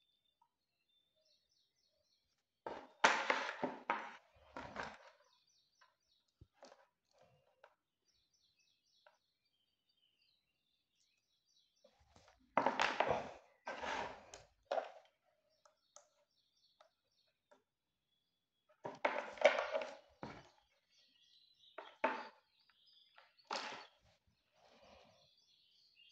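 Handling noise from plastic resistor holders and crocodile-clip test leads being clipped, moved and set down on a board: four bursts of clicks, knocks and clatter, with quiet gaps between them.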